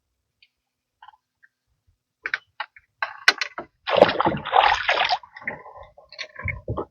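A hooked fish splashing and thrashing at the water surface as it is brought in, loudest for about a second midway, after a few short clicks.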